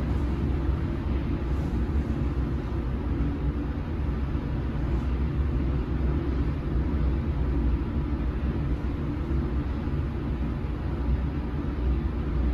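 Hitachi valve-controlled hydraulic passenger elevator travelling between floors: a steady low rumble that holds even throughout.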